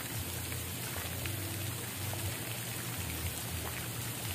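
Steady rush of running and splashing water, with scattered small drip-like ticks.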